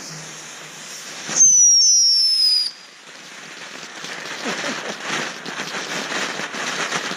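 Consumer fireworks going off. About a second and a half in, a loud whistle with several falling tones sounds for just over a second and cuts off sharply. Dense crackling follows and builds toward the end.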